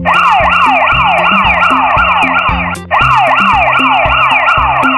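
Emergency-vehicle siren sound effect, a fast wail that falls in pitch about three times a second, in two stretches with a short break a little before the middle, over background music with a steady beat.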